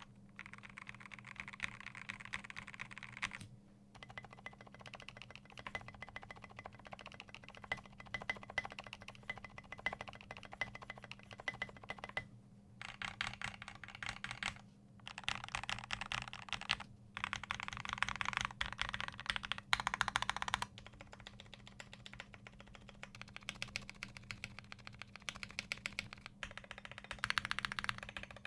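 Typing on a GMMK Pro mechanical keyboard with lubed Everglide Aqua King linear switches, an aluminium plate and PBT doubleshot keycaps: a fast, dense run of keystrokes. It stops briefly a few times, and a loudest stretch comes a little past the middle.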